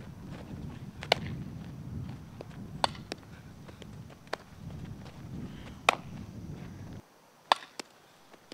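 Sharp pops of a softball striking a bat and leather gloves, four loud ones a second or two apart with smaller taps between, over a low rumble that drops away suddenly about seven seconds in.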